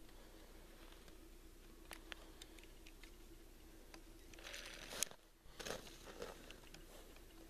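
Faint crunching and rustling of snow and slushy ice as someone crouches and works by hand at an ice-fishing hole, with scattered small clicks. The crunching grows louder for a couple of stretches about two-thirds of the way in.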